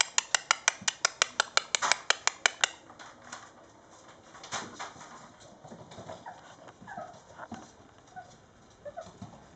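Mastiff puppies on a wooden floor. A quick, even run of sharp clicks, about six a second, lasts for the first three seconds, then come scattered light taps and a few short, soft puppy whimpers.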